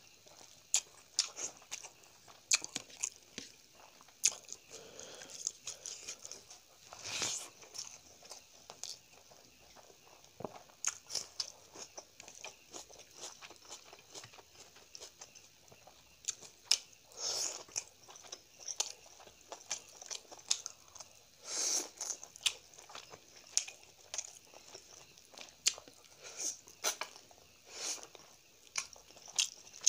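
A person chewing and biting mouthfuls of chicken curry and rice eaten by hand, close to the microphone: an irregular stream of short mouth clicks and smacks, with a few louder ones.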